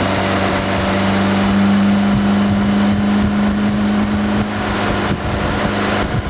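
Motorboat engine running with a steady drone.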